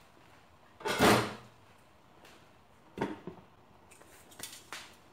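A glass pot lid with a metal rim being set onto a cooking pot to cover it for simmering: a loud clatter about a second in, then a sharp knock about three seconds in and a few lighter clicks near the end.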